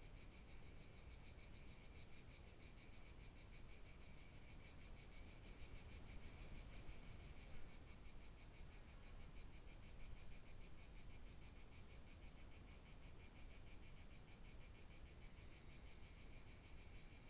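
Faint, steady chorus of insects chirring outdoors: a fast, continuous high-pitched pulsing trill that does not stop or change.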